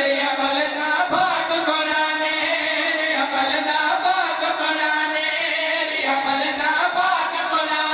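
Several men's voices singing a Shia devotional chant together into a microphone, in long, held, melismatic notes.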